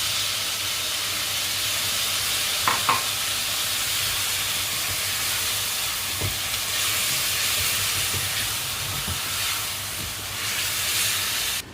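Sautéed peppers and onions sizzling in a hot pan with a soy-sauce sauce poured over them, stirred, with a couple of light utensil clinks about three seconds in. The sizzle cuts off suddenly near the end.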